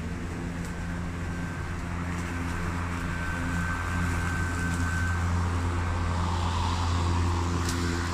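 Ryobi 40V brushless cordless push lawn mower running as it cuts grass: a steady low hum with a thin high whine and a hiss, growing louder as the mower comes close.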